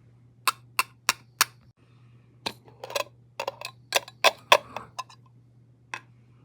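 Sharp clicks and taps of small hard wax-seal stamping tools being handled: four evenly spaced clicks, then a quick run of irregular clicks and taps, and one last click near the end. A faint steady low hum lies underneath.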